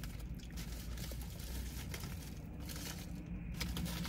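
Foil sandwich wrapper crinkling as it is peeled back from a burger.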